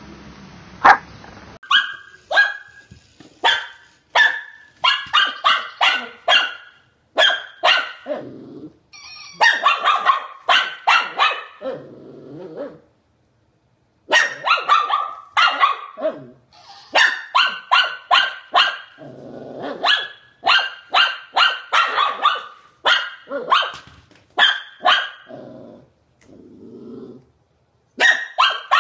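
Shih tzu barking in quick runs of three to five sharp barks, with low growls between some of the runs.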